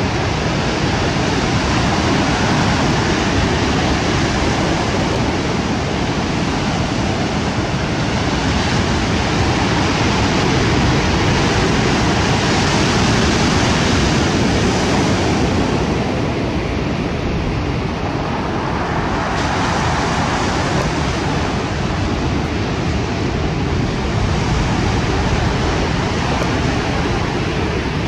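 Surf breaking and washing up a cobble beach: a steady rush of waves that swells a little midway and eases again.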